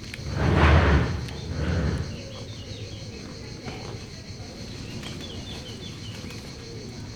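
Outdoor ambience with a steady high hiss and a few faint bird chirps, after a loud rushing, breathy noise about half a second in and a smaller one near two seconds.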